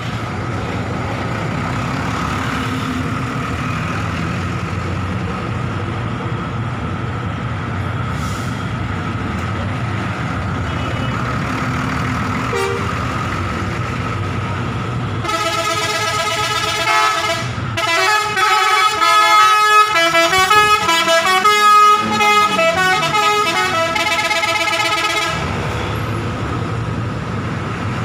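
Large tour buses running and pulling past with a steady engine rumble; about halfway a multi-tone musical bus horn, the Indonesian 'telolet' horn, sounds a changing run of notes for around ten seconds.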